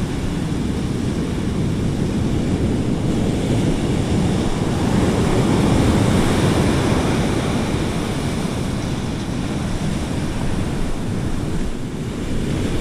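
Ocean surf breaking and washing up over the sand in the shallows, a continuous rush that swells around the middle, with wind buffeting the microphone.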